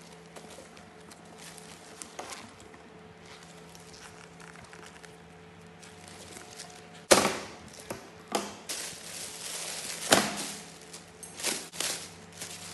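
Plastic polybag wrapping and a leather bag being handled. Faint rustling at first, then a sudden loud rustle about halfway through, followed by several loud crinkling swishes of the plastic.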